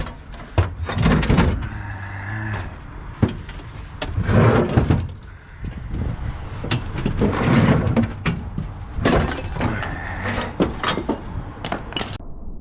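Scrap metal clanking: pieces of cast iron and steel being pulled off a load and tossed onto a pile, with irregular sharp knocks and rattles.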